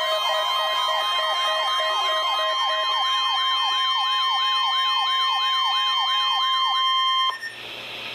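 Weather-radio alert: a steady, loud warning tone of about 1 kHz (the NOAA Weather Radio 1050 Hz alarm) with a rapidly warbling siren over it, sweeping up and down about three times a second. Both stop abruptly about seven seconds in, leaving radio static hiss.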